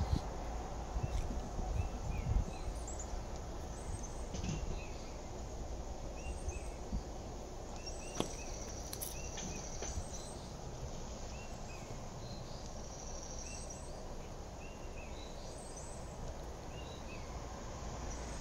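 Outdoor ambience of insects and birds: a high insect trill that comes and goes, with short bird chirps repeating about once a second, over a low rumble. A single sharp click sounds about eight seconds in.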